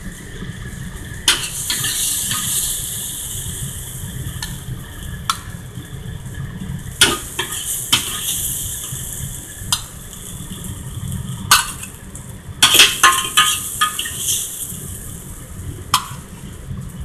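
A metal wok ladle clinking and scraping against the wok and plate as stir-fried food is dished out. There are sharp clinks at irregular intervals, with a quick run of them about two-thirds of the way through, over the steady sizzle of the hot stir fry.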